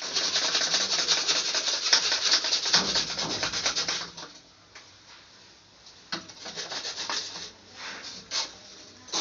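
Rapid, dense scraping strokes, like abrasive rubbing on a hard surface, for about four seconds. Then a few slower, separate strokes follow.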